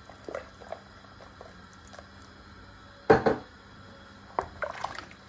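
Cooking oil poured into a steel pressure cooker of water and chopped onions, with small soft splashes. About three seconds in there is one loud knock, then a wooden spoon stirring and clunking against the steel pot near the end.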